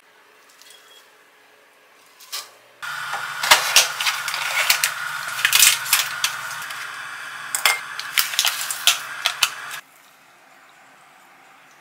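Plastic packet of a freeze-dried miso soup block being torn open and unwrapped by hand: a run of sharp crinkles and crackles over a steady hum that cuts off suddenly near the end, followed by a faint pour of hot water into a ceramic bowl.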